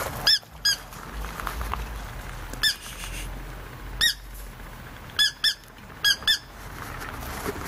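A squeaky dog toy being squeezed: about eight short, high squeaks, several in quick pairs as it is squeezed and let go.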